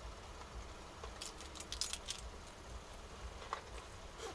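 Keys jangling, a brief cluster of light metallic clinks about a second in, over the low steady hum inside the car.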